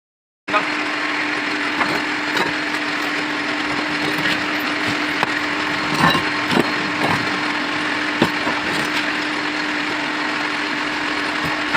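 Lathe running with a steady motor hum and noise, with scattered clicks and knocks.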